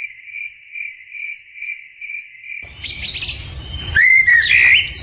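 A cricket chirping in an even pulse, about two and a half chirps a second. About two and a half seconds in it cuts to birds chirping over a steady outdoor hiss, the birds louder near the end.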